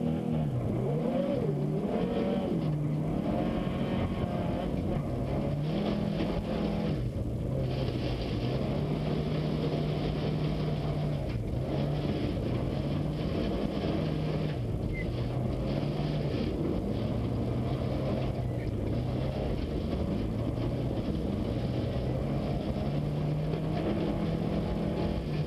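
Subaru Impreza's flat-four engine heard from inside the car as it is driven hard, the revs climbing and dropping again every two to three seconds through the lifts and gear changes of fast cornering. A steady hiss of tyres on snow and ice runs underneath.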